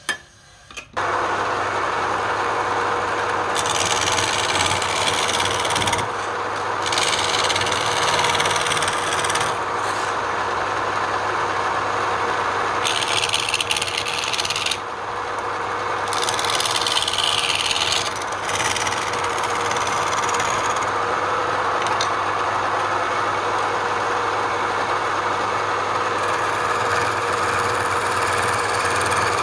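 Wood lathe running with a steady motor hum, while a tool works the spinning wood in several scraping passes of two to three seconds each. The lathe sound comes in about a second in, after a brief click.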